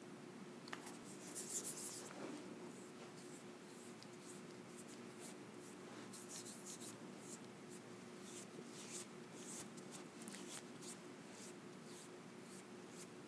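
Fingertips rubbing and patting face-mask cream onto the skin close to the microphone: faint soft rubbing with many small sticky crackles, and a brief louder rustle about two seconds in.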